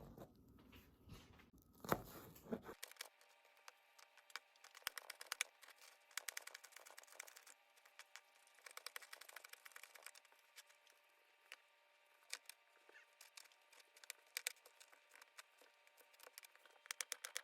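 Faint crinkling and tearing of food packaging being handled, with many small scattered clicks.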